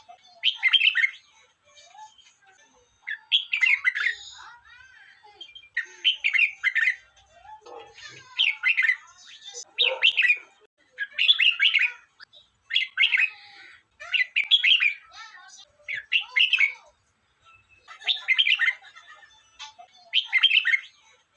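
Red-whiskered bulbul singing: short, bright warbled phrases about a second long, repeated every second or two, about a dozen in all.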